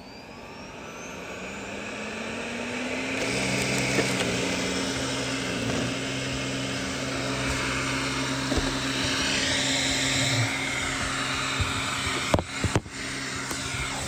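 Roborock S6 robot vacuum's suction fan spinning up with a rising whine over the first few seconds, then running steadily as the robot starts a cleaning run. A few sharp knocks about twelve seconds in.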